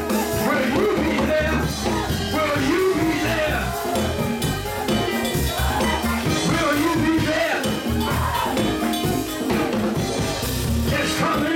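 Live church band music with a drum kit playing, loud and unbroken.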